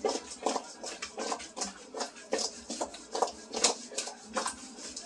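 Raw chicken wings tossed and mixed by hand in a stainless steel bowl to coat them in salt and pepper: a run of irregular soft slaps and knocks, about three a second.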